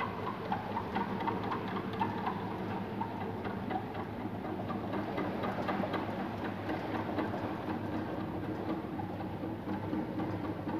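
Whirling-of-shafts test rig running: a belt-driven thin steel shaft carrying a central disc spins near its first critical speed and bows out into its first mode shape. It makes a steady mechanical hum with a fast ticking rattle.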